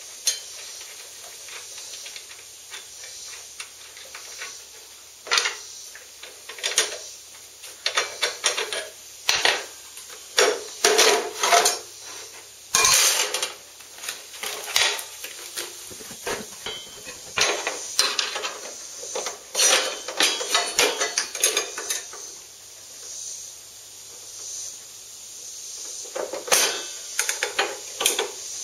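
Metal-on-metal clinks and knocks of a wrench and loose saw parts at a table saw's blade arbor while the blade is swapped, coming irregularly and thickest through the middle and again near the end, over a steady hiss.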